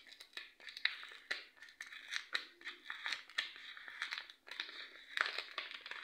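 Packaging of cosmetic patches being crinkled and torn open: an irregular string of crackles and rustles.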